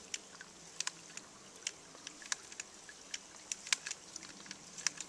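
Katadyn Vario hand-pump water filter being pumped: sharp, irregularly spaced clicks from the pump strokes over a faint steady hiss of running water.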